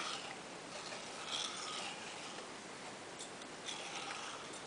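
Faint rustling and light scraping of objects being handled, with a few soft ticks.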